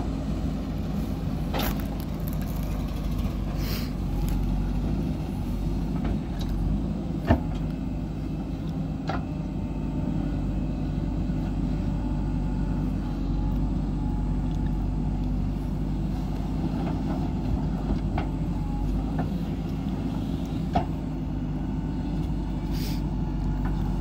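A JCB backhoe loader's diesel engine runs steadily under load while the backhoe digs soil, with a few sharp knocks, the loudest about seven seconds in and again near twenty-one seconds.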